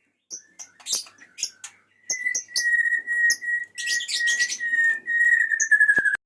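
Male white-rumped shama singing: rapid sharp chirps and whistled notes. From about two seconds in, a long held, slightly falling whistle runs beneath the chirping. The sound breaks off briefly near the end.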